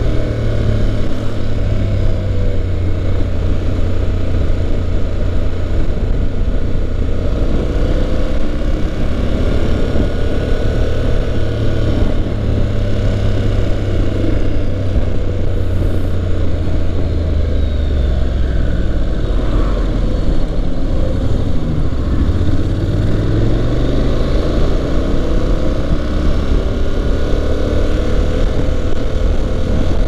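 Honda NC750X's parallel-twin engine running while riding. Its note drops a little past the middle and climbs again a few seconds later.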